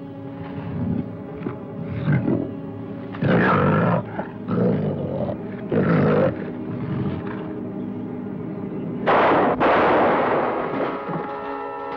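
A black jaguar snarling and roaring in repeated rough bursts during a fight, the longest and loudest roar coming about nine seconds in, over dramatic music with held chords.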